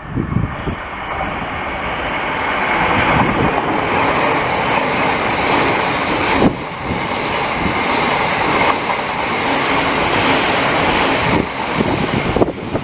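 A passing train's wheels running over the rails with a loud, steady rush that builds over the first couple of seconds and eases near the end.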